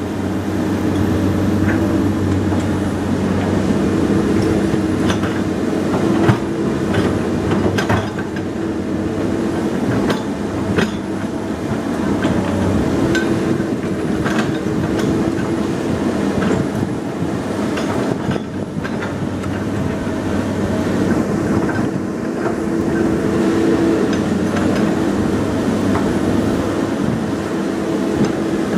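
Komatsu PC200 hydraulic excavator's diesel engine running steadily under working load, its note rising and falling with the work. Sharp metallic clanks come now and then from the machine's steel parts.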